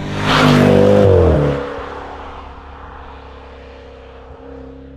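Range Rover Velar SVAutobiography's supercharged V8 exhaust as the car drives past: loud as it passes, the engine note dropping in pitch a little over a second in, then fading steadily as the car pulls away down the road.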